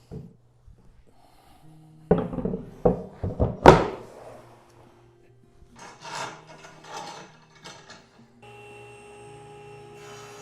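Milled walnut boards being handled and set down against each other: a quick run of wooden knocks about two seconds in, a few softer knocks a little later, then a steady hum starts near the end.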